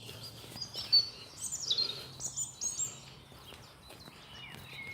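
Birds chirping and singing outdoors, a run of quick high chirps and short gliding notes in the first few seconds, over faint steady background noise.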